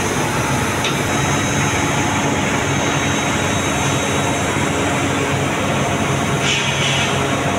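Mobile crane's diesel engine running steadily under the operator's lever work, with a short hiss about six and a half seconds in.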